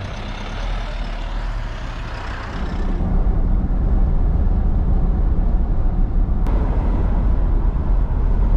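Motorhome engine and road noise, heard from inside the cab. About three seconds in, the high hiss fades and a deeper, slightly louder rumble takes over.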